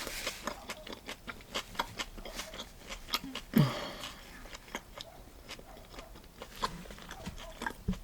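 Close-miked chewing of a turkey-and-cheese sandwich on sourdough bread: wet mouth clicks and smacks, irregular and soft. About three and a half seconds in there is one short, louder voice-like sound that falls in pitch.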